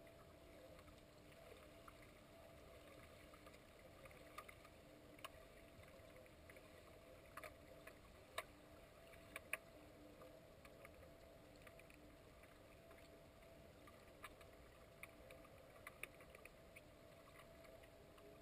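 Faint underwater swimming-pool ambience heard through the water: a steady low hum, with scattered sharp clicks and knocks, a few of them louder around the middle.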